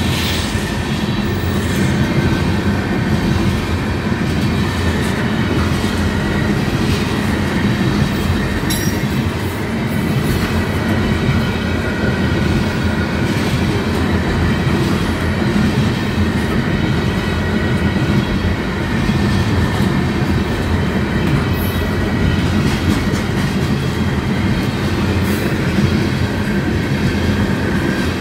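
Loaded open-top hopper cars of a CSX wet phosphate rock train rolling steadily past at speed, steel wheels running over the rails.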